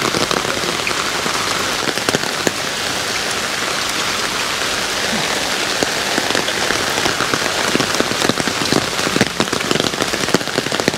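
Steady rain falling on hard surfaces, an even hiss with many sharp drops ticking close by.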